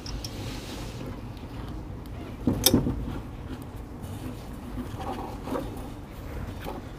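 Sticks of firewood being pushed and shifted into a small wood-fired stove under an iron griddle, with one sharp knock a little over two and a half seconds in and a few fainter knocks later.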